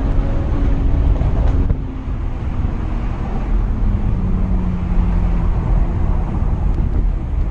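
BMW Z4 M40i's turbocharged straight-six exhaust under way. The note climbs, then drops off sharply about one and a half seconds in with a couple of short crackles as the throttle closes, then pulls again at a steadier, lower note. Heavy wind and road rumble runs underneath.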